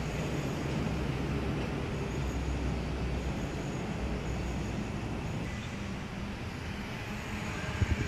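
Steady low vehicle rumble with a faint engine hum underneath.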